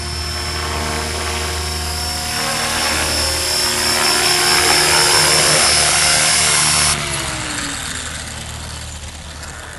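Outrage 550 electric RC helicopter running on 6S battery power, a high steady motor whine over the rotor's hum, growing louder as it flies close. About seven seconds in, after it sets down, the whine cuts off suddenly and the rotor winds down with falling pitch.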